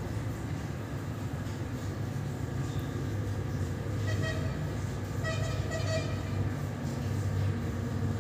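A steady low rumble, with a horn tooting a few short blasts around the middle.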